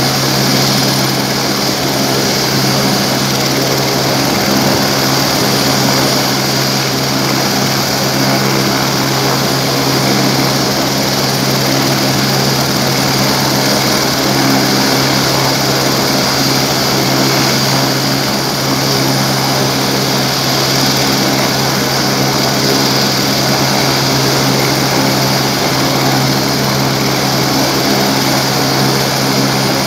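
Helicopter running steadily on the ground: a constant drone of turbine and rotor with a steady high whine above it.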